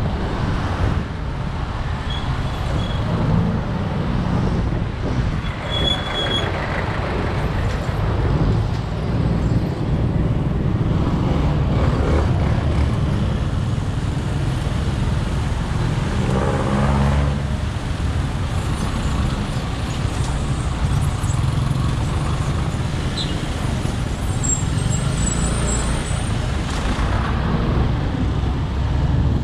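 Motorcycle engine running at low speed in slow city traffic, mixed with road noise and the engines of the surrounding cars, vans and motorbikes. A few brief high-pitched tones come in about two seconds in, around six seconds, and again near the end.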